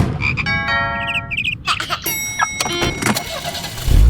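Low engine rumble of a car, with short electronic tones and pitched notes laid over it.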